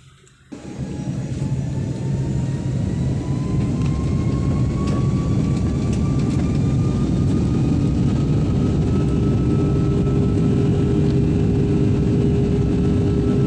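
Jet airliner engines heard from inside the cabin: a loud, steady roar that starts abruptly about half a second in, with a whine rising slowly in pitch as the engines spool up.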